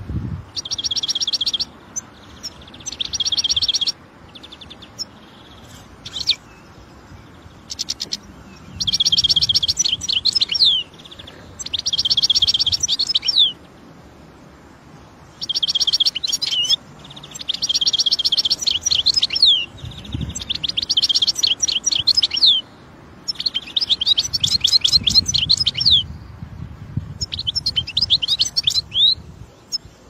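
A finch singing: phrases of a second or two made of fast, high trills that end in quick falling sweeps, repeated every few seconds with short pauses between them.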